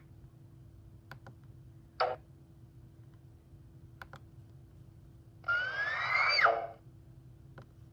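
Separate cartoon sound effects. A short pitched blip comes about two seconds in. Later a longer effect lasts just over a second, with a rising whistle over a noisy rush that drops sharply in pitch at the end. Faint single clicks fall between them.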